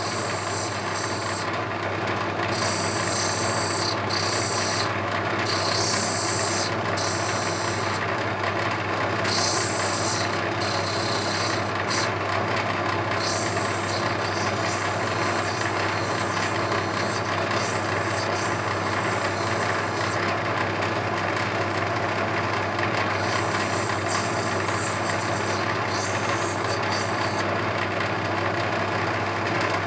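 Rough opal being ground on a wet 600-grit diamond wheel: the wheel's motor hums steadily while a high grinding hiss comes and goes in stretches of a second or two as the stone is pressed to the wheel and lifted off.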